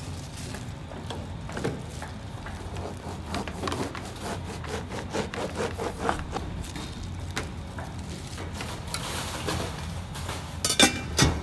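Food-prep handling at a steel counter: a plastic glove rustling and scraping, with small clicks and knocks, over a steady low hum. Near the end come two sharp metal clacks, the loudest sounds, as a hand works at stainless-steel food pans.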